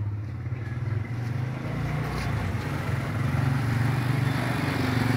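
Motorcycle engine running close by: a steady, low, rapidly pulsing throb, with a rush of higher noise joining about a second and a half in.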